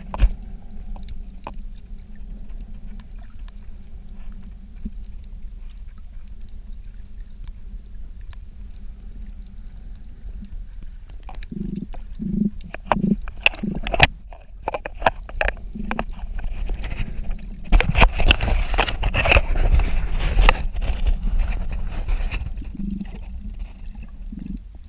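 Muffled water noise picked up by a camera held underwater while snorkelling: a steady low rumble. It is broken about halfway through by a few short dull thuds and clicks, then a louder stretch of sloshing and bubbling.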